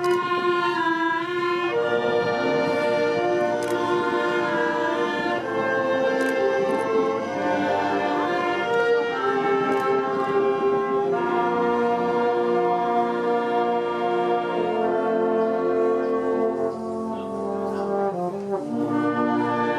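Orchestral background music led by brass, sustained chords that change every second or two.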